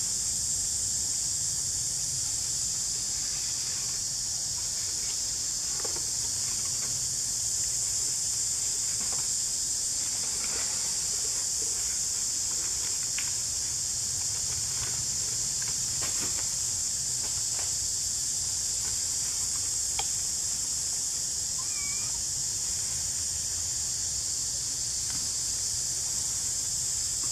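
Steady high-pitched drone of insects in the forest, with a few faint clicks and a couple of short chirps near the end.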